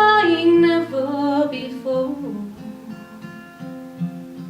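A singer holds and bends the last sung note of the song over guitar, the voice dropping away about two seconds in and leaving the guitar's final chords ringing.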